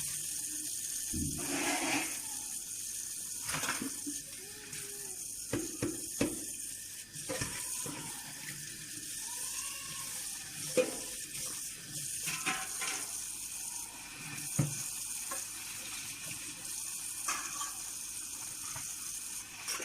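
Kitchen tap running steadily into the sink while dishes are rinsed, with scattered clinks and knocks of dishes and utensils against each other and the sink.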